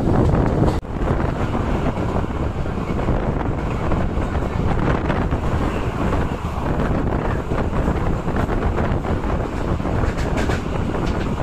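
Wind blowing hard on the microphone at the open door of a moving Indian Railways passenger coach, over the steady running noise of the train on the rails. There is a brief drop-out about a second in.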